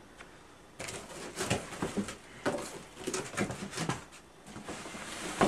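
Packaging wrap rustling and crinkling in irregular bursts as the longboard is unwrapped and handled, ending in a sharper knock.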